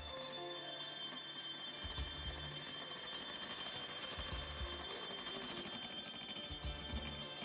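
Electric hand mixer running at high speed, its twin beaters whipping egg whites and powdered sugar into stiff meringue, with a steady high motor whine. A low hum-like note comes back about every two seconds.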